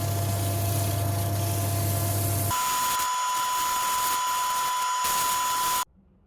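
Wood lathe running with a steady whine and hiss, in two spliced stretches: a deeper hum in the first, a higher whine in the second. The sound cuts off abruptly near the end.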